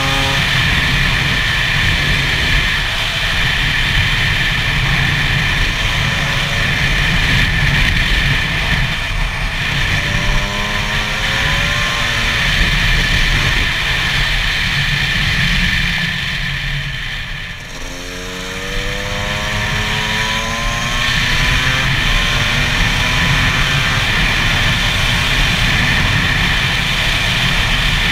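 2009 Gas Gas EC SMR 125's single-cylinder two-stroke engine running under way as the bike is ridden. The revs rise twice as it accelerates, with a short drop off the throttle about two-thirds of the way through before it pulls away again.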